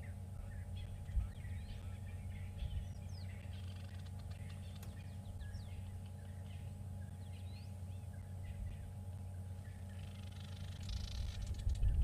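Weaver birds at their nests, chattering with many short chirps and quick whistled glides, and a buzzy sizzling chatter near the end.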